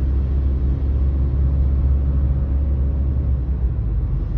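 Steady low rumble of a car driving at highway speed, heard from inside the cabin: tyre and road noise with engine drone.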